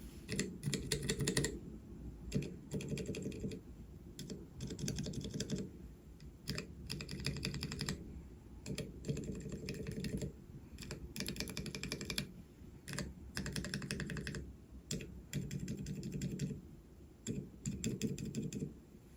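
Mechanical keyboard switches with keycaps fitted, in a 3x3 switch tester on a metal plate, being pressed in quick runs of clacks about a second long with short pauses between runs.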